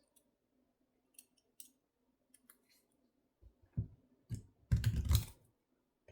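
Steel Peerless 700C handcuffs being handled: a few light metal clicks, then heavier knocks and handling noise about four to five seconds in.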